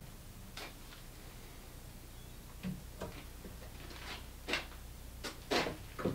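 Light knocks and clicks of hand work on a white furniture-board cabinet carcass: a clamp and a square being handled and set against the carcass. There are about eight sharp, uneven taps, and the loudest two come in the last couple of seconds.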